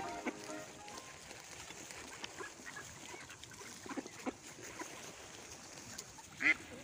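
Mallard ducks quacking softly and sporadically at close range, with one louder quack near the end.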